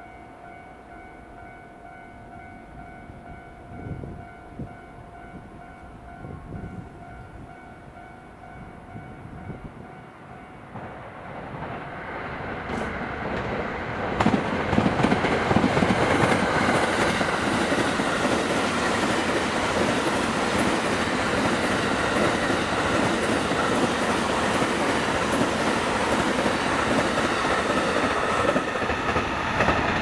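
A level-crossing warning bell ringing, then an electric train approaching from about eleven seconds in, growing much louder at about fourteen seconds and running past the crossing for the rest of the time.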